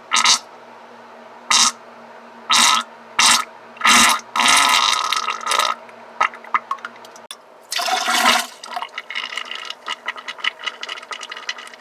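Wet, sputtering diarrhea fart sounds: five short blasts in the first four seconds, then a longer sputtering one, another blast about eight seconds in, and crackly wet spattering between them and toward the end.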